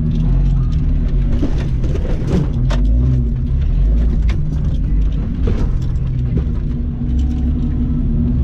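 Jeep Cherokee XJ engine running steadily at low revs while crawling over rocks, heard from inside the cabin, with scattered short knocks and clicks over a heavy low rumble.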